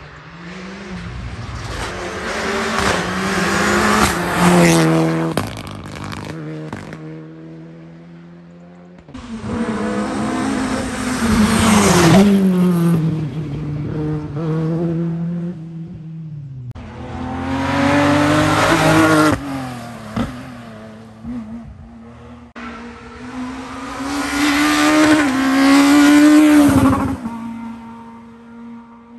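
Rally cars passing one at a time on a tarmac special stage, four in a row. Each engine grows louder as it approaches and its note rises and falls as it goes by. Each pass cuts off suddenly.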